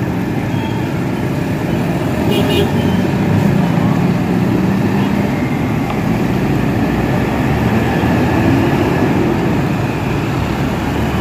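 Street traffic: motorbikes and cars passing close by on a wet road, their engines running, with a short high toot about two and a half seconds in.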